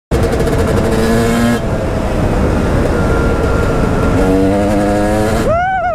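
KTM enduro dirt bike engine running hard at speed, heard from the rider's helmet with wind noise underneath. The engine note changes about one and a half seconds in, climbs steadily later, and near the end its pitch jumps up sharply and falls away.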